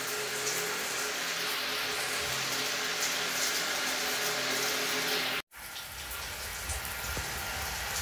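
Shower water spraying steadily onto tiles, an even hiss. It cuts out for an instant about five and a half seconds in, then carries on with a little more low rumble.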